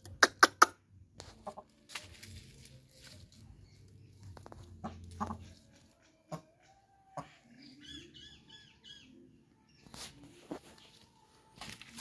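Black Aseel hen clucking: four short, loud clucks in quick succession at the start, then softer scattered clucks and clicks, with a quick run of high chirps a little past the middle.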